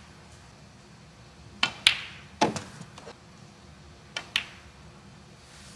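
Snooker balls clicking: the cue tip striking the cue ball and hard resin balls colliding, as several sharp clicks, mostly in pairs, spread over a few seconds against quiet arena background.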